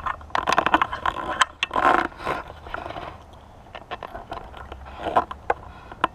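Handling noise of scrapes and clicks, a dense rattle in the first couple of seconds and a few more sharp clicks about five seconds in.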